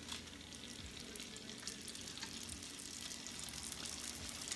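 Ring-shaped donut dough frying in hot oil in a pan: a steady sizzle with many fine crackles, growing slightly louder.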